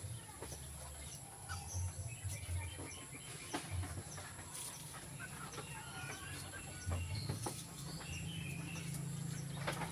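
Faint chirping and clucking of fowl and small birds, scattered through the whole stretch, with a few sharp knocks about half a second, three and a half seconds and near ten seconds in.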